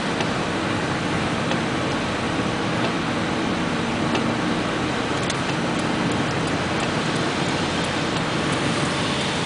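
Steady road noise inside a moving car on a wet highway: tyre noise and a low engine hum, with a few faint ticks here and there.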